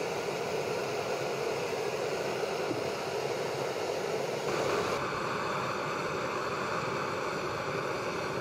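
Gas canister camping stove burner running under a pot of water, a steady hiss whose tone shifts slightly about halfway through.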